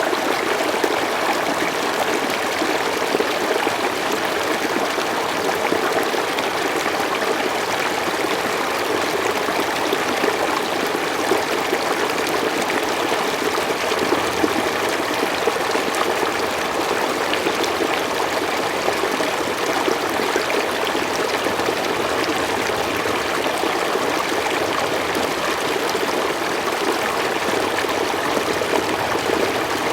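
Slow forest stream flowing, a steady, even rush of running water with no change throughout.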